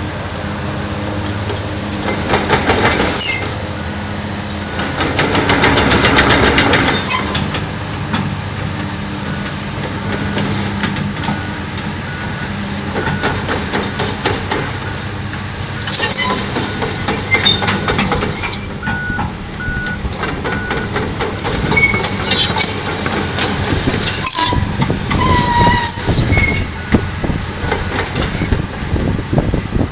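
Komatsu PC290LC-10 hydraulic excavator running and moving, its diesel engine humming steadily under repeated metal clanks and short high-pitched squeals. The loudest clanks come about 3, 16 and 24 seconds in.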